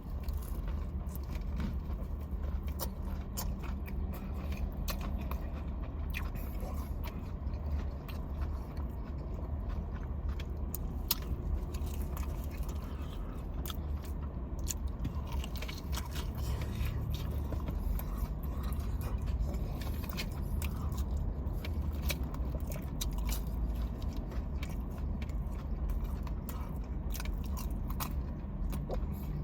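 Close-miked chewing and biting: a person eating fried food, with irregular wet smacks and crunches over a steady low hum.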